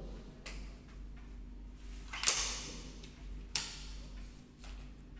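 A Precihole SX200 Minerva break-barrel spring-piston air rifle is loaded by hand. A light click comes as the pellet goes into the breech. About two seconds in, the barrel snaps shut with a loud sharp clack, and a shorter sharp click follows a little over a second later.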